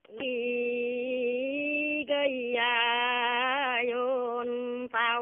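A woman singing a Dao folk song unaccompanied, holding long, slightly wavering notes with brief breaths between phrases.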